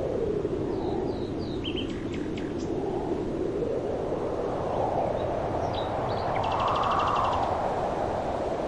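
Outdoor rushing noise that swells and fades every few seconds, with small birds chirping over it and a quick trill of about ten notes near the end.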